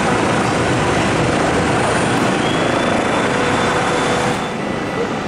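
Gulfstream G300 business jet's twin rear-mounted turbofans running at taxi power, a steady jet rumble and hiss with a faint high whine. About four seconds in, the sound drops abruptly and turns duller.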